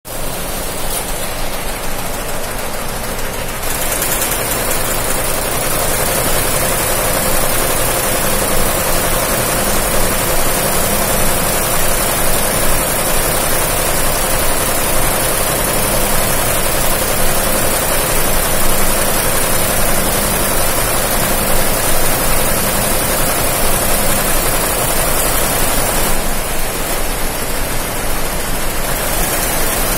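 Multi-head computerized embroidery machine running: a loud, steady mechanical din from its row of needle heads, with a high hiss that comes in about four seconds in.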